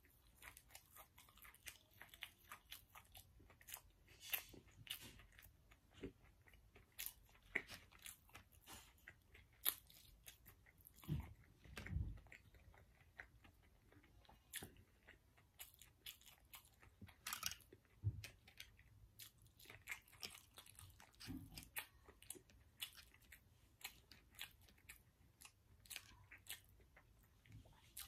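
Quiet, close-miked chewing of breakfast food: soft crunches, biting and wet mouth clicks come at irregular moments throughout, with a few low soft thumps around the middle.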